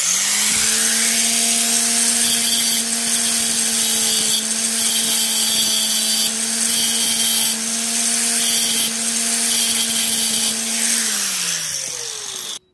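Electric angle grinder running at full speed, its cutting disc grinding through a steel chainsaw chain in several harsh passes. Near the end the grinder is lifted off, the motor winds down with falling pitch, and the sound cuts off suddenly.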